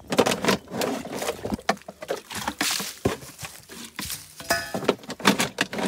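Water being bailed out of a stone-lined spring well (naula) with a plastic bottle to drain it for cleaning: irregular splashes and sloshes, with the bottle clinking and knocking against the stone.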